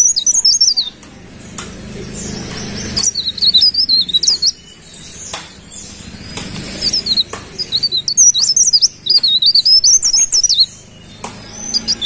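Cikrak daun leaf warbler singing: loud, rapid, high-pitched twittering warbles in phrases of about one to three seconds, broken by short pauses.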